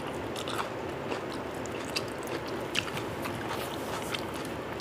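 Faint chewing and wet mouth clicks from a person eating mutton biryani by hand, over a steady background hiss.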